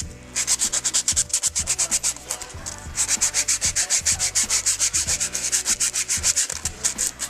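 Sandpaper rasping against the face of a freshly machined brake rotor to give it a non-directional finish. The rasp pulses rapidly and evenly, several times a second, with a short lull about two seconds in, over a low steady hum from the brake lathe.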